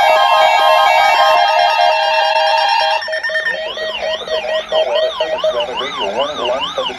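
Weather alert radio receivers sounding their alarms, triggered by the NOAA Weather Radio required weekly test. For about three seconds several steady tones sound together; then a siren-like tone sweeps up and down about twice a second.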